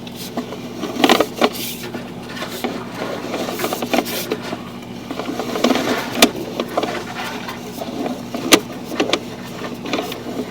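Sewer inspection camera equipment being pulled back through a clay lateral: a steady low hum, with irregular clicks and knocks from the push rod and reel, the sharpest about a second in, about six seconds in and near eight and a half seconds.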